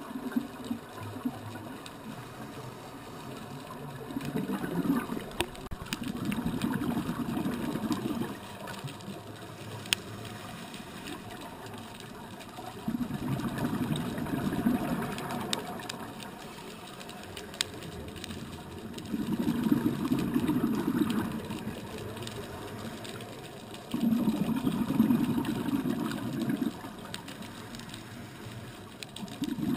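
A scuba diver's exhaled bubbles rumbling out of the regulator underwater, in bursts of two to three seconds about every five to six seconds, with quieter gaps for the inhale between them.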